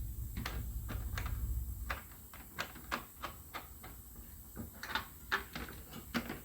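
Ratchet wrench clicking in short, irregular runs as bolts are tightened down, with a low rumble that stops about two seconds in.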